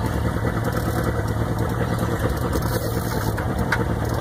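Boat engine idling steadily, with a couple of faint clicks near the end.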